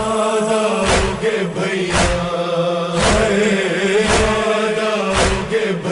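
Vocal jingle for a TV programme break: a voice holds long chanted notes over a steady beat of about one stroke a second.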